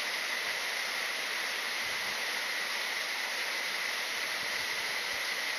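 Mountain stream rushing steadily over rocks, an even wash of running water.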